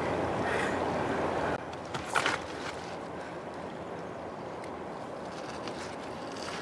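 Steady rushing of flowing river water. It drops in level after about a second and a half, and there is a brief louder burst of noise a little after two seconds.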